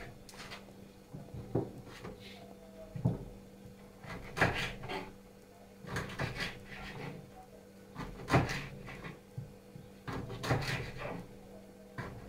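Kitchen knife chopping raw saury into chunks on a wooden cutting board: a sharp knock on the board with each cut, about one every one and a half seconds.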